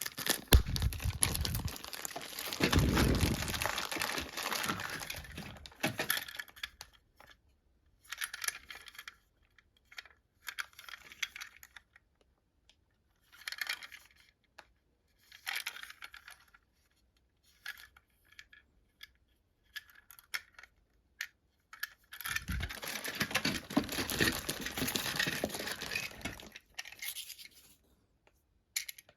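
Plastic packaging crinkling and rustling as a Plarail toy train set is unpacked, with short clicks and light clatter of small plastic parts in between. The crinkling is loudest for the first few seconds and again near the end.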